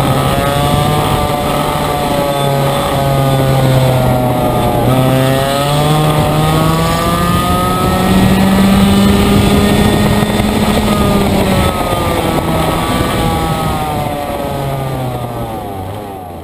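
100cc racing kart engine heard from onboard at full race pace, its pitch dipping briefly about five seconds in, climbing and holding highest on a straight, then falling away as the kart slows for the cones. The sound fades out near the end.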